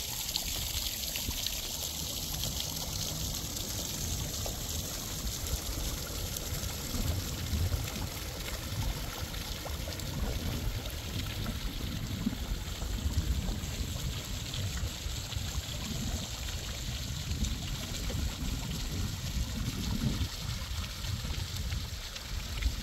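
Water trickling and running steadily in a fountain's round, shallow pool at the foot of a stone staircase, over a low, uneven rumble.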